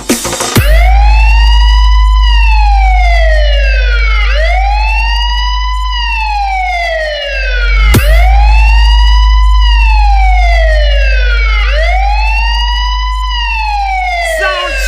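Police-style wailing siren sample in a DJ sound-check track: four slow wails, each rising quickly and then gliding down, over a loud, steady deep bass drone. The bass briefly dips and a single click comes about halfway through.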